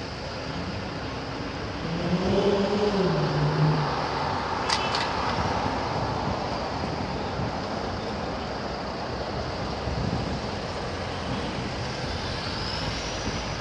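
City street traffic: cars and vans passing with a steady road noise. One vehicle is louder between about two and four seconds in, its engine note dropping in pitch as it goes by.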